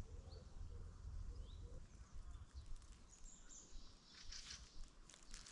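Quiet riverside ambience: a low rumble of wind on the microphone, a few faint high chirps, and faint rustling toward the end.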